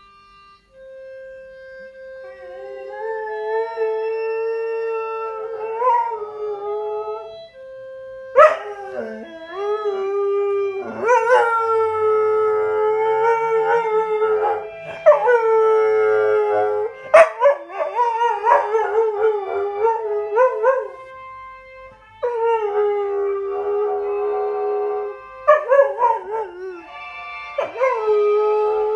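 A dog howling along to music: a series of long, wavering howls with short breaks between them, over steady held musical notes.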